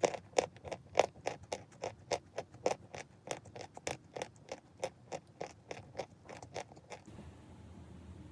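Chalk being bitten and chewed, a quick run of sharp, crisp crunches at about three to four a second that stops about seven seconds in, with a few fainter crunches after.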